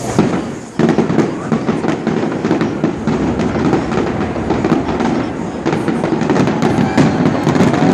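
Aerial fireworks going off in a dense, rapid barrage of bangs and crackles, which starts suddenly about a second in and keeps up throughout.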